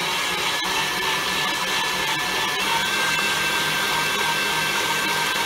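Electric mixer running steadily, its beater churning sweet potato pie batter in a glass mixing bowl, with a steady motor hum and a faint high whine.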